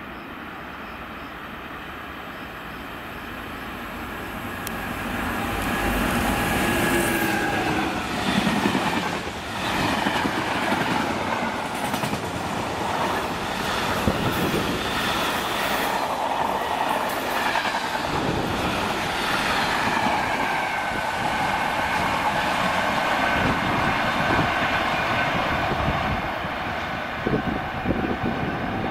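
Locomotive-hauled container freight train passing: the approach builds over the first few seconds, the locomotive goes by about eight seconds in, and then a long rake of container wagons rolls past. There is a steady clatter of wheels over the rail joints, with a thin steady tone from the wheels over it.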